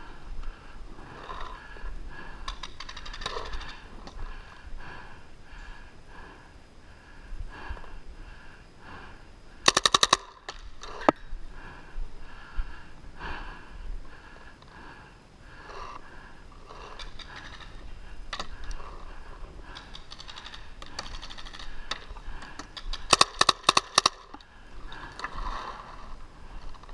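Tippmann 98 Custom paintball marker with a Response Trigger firing a quick burst of shots about ten seconds in, a single shot just after it, then a longer burst of rapid shots about thirteen seconds later.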